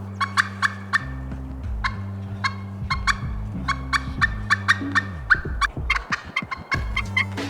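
Wild turkeys gobbling again and again, each gobble a quick rattling run of short notes, over background music with low sustained notes.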